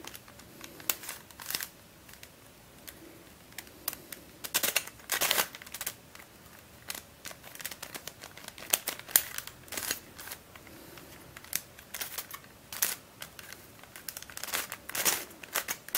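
Plastic layers of a Dayan + mf8 standard 5-layer pentahedron twisty puzzle clicking and clacking as it is scrambled by hand, in quick irregular turns with short rattling runs.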